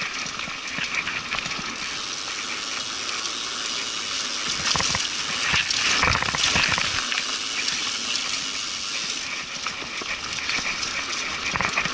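Trek mountain bike riding over a dirt singletrack: tyres rolling over dirt and leaves with a steady rushing hiss of wind on the handlebar-mounted camera's microphone, and a run of heavier jolts and rattles from the bike over bumps around the middle.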